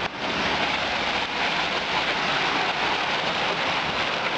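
Heavy hail and rain pounding down in a steady dense clatter of countless small impacts.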